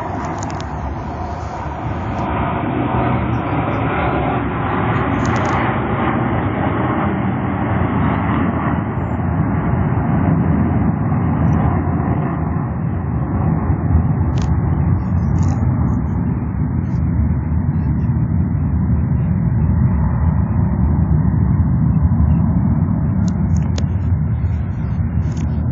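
Steady jet roar of a formation of G-4 Super Galeb jets flying over, a deep rumble that slowly grows louder.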